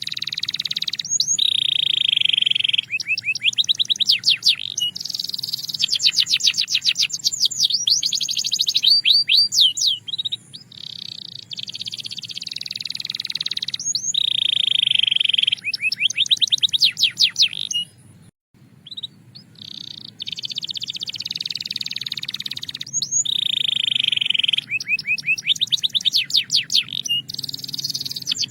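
Belgian canary singing a long, continuous song. Held rolling trills alternate with fast runs of repeated sharp notes, and the same phrase comes back about every nine seconds. The song pauses briefly about two-thirds of the way through.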